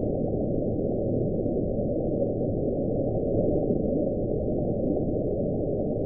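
Deep-ocean hydrophone recording played back at 16 times speed: a steady low rushing noise with no clear tone, the background between the moans of the "Julia" sound.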